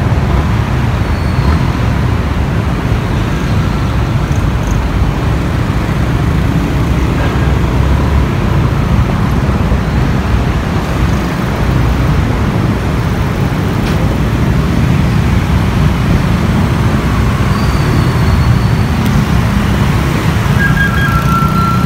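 Steady, loud rumble of wind buffeting the microphone and motorcycle engines running while riding among many motorcycles in slow traffic.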